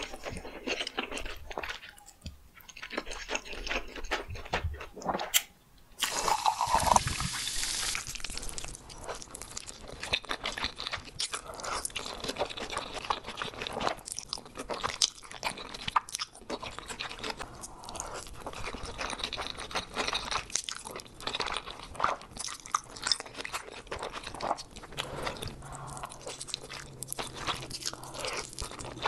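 Eating sounds of cheesy corn noodles being slurped up and chewed mouthful after mouthful, with a brief break about six seconds in.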